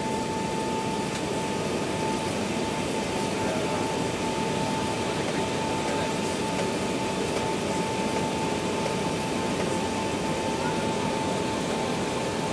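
Steady cabin noise inside an Airbus A380 taxiing, the engines and airflow making an even rush with a steady high whine held throughout.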